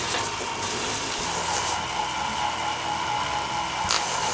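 Hand-held power tool spinning an inflatable sanding drum, running steadily as it sands a small wooden tube, with a steady whine over an even hiss.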